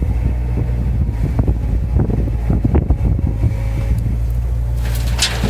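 Bobcat 331D mini excavator's diesel engine running steadily while digging, with scattered knocks. Wind gusts on the microphone near the end.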